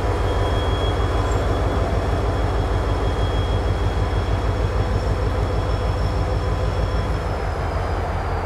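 Diesel locomotive running at low throttle as it rolls slowly past, a steady deep throbbing rumble. A faint thin high whine sits above it and fades near the end.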